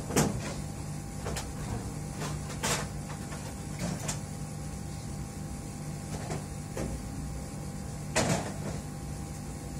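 Scattered knocks, clicks and clatter of objects being moved about while someone rummages through parts, about eight in all, the loudest at the start and about eight seconds in, over a steady low hum.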